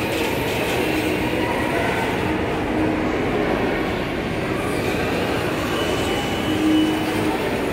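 Children's electric ride-on toy car rolling across a polished marble floor: a steady rolling noise from its hard plastic wheels and small electric drive motor.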